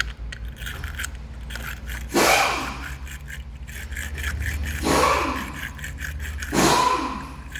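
A brush scrubbing corrosion off a car battery terminal: scraping and scratching strokes, with three louder scrubbing bursts about two, five and six and a half seconds in.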